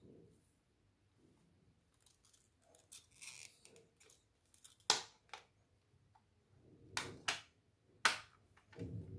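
Plastic CD jewel case being handled: a soft rustle, then about five sharp plastic clicks as the disc is pressed off the centre hub and the case is closed.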